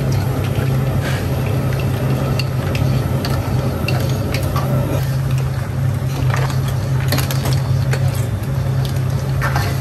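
A metal ladle stirs seafood in salted egg sauce in a steel wok, with scattered clinks and scrapes of metal on metal. A steady low hum from the stall's burner or fan runs underneath.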